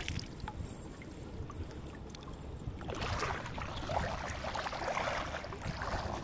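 Shallow river water sloshing and splashing around a person's legs as he wades, over the steady rush of the river; the splashing gets louder and busier about halfway through.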